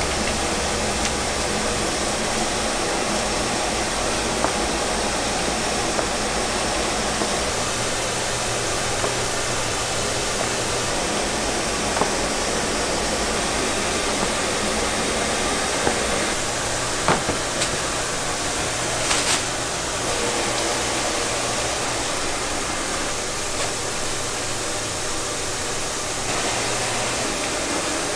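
Steady whir of rice-cake shop machinery with a low hum, and now and then a sharp tap of a cleaver cutting garae-tteok on a cutting board.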